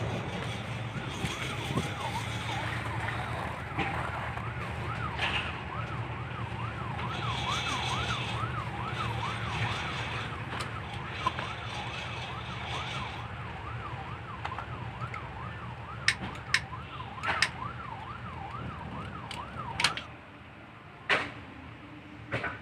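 Cargo barge's engine running steadily while under way. A warbling, siren-like tone rises and falls about twice a second over it for most of the stretch, and a few sharp knocks come near the end.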